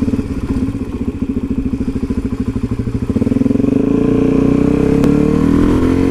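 2009 Suzuki DRZ400SM's single-cylinder four-stroke engine pulling at low revs with distinct separate firing beats, then rising steadily in pitch from about halfway as the bike accelerates.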